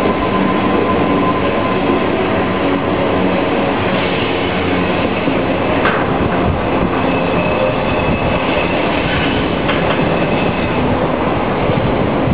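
Union Pacific double-stack intermodal train's loaded well cars rolling past on a curve: a steady rumble and clatter of steel wheels on rail, with a thin high wheel squeal around the middle.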